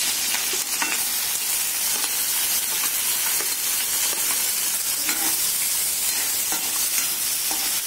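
Chopped onions frying in a hot metal kadai with a steady sizzle, and a spatula now and then scraping and stirring them against the pan.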